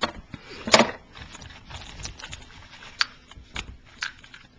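Plastic packaging being handled: a clear plastic bag of small vinyl repair-compound pots crinkling and rustling as it is taken out of the kit, with a few sharp light clicks and taps. The loudest rustle comes just under a second in.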